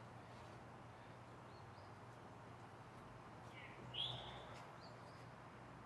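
One short, rising, bird-like chirp about four seconds in, over quiet room tone with a low steady hum.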